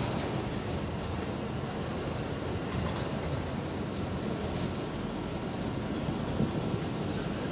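Freight train of autorack cars rolling past, with the steady noise of steel wheels running on the rails.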